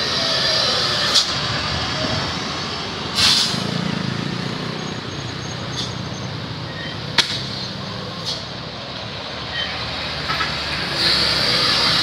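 Heavy trucks driving past, engine and tyre noise, with several short sharp hisses and clicks. Louder near the end as one passes close.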